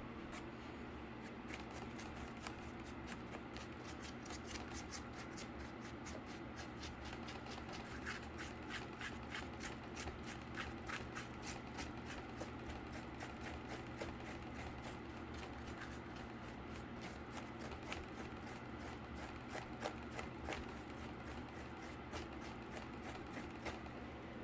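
Paintbrush dry-brushing a cardboard surface in quick, regular back-and-forth strokes.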